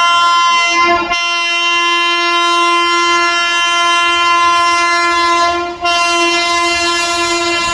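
Locomotive horn of the approaching 12350 New Delhi–Godda Humsafar Express sounding one long, loud blast at a steady pitch, with a brief break about a second in and again near six seconds.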